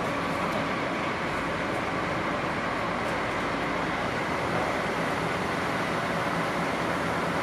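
Steady running noise of a standing locomotive pair: the DD51 diesel-hydraulic locomotive's engines idling while the coupled C58 steam locomotive vents steam with a constant hiss.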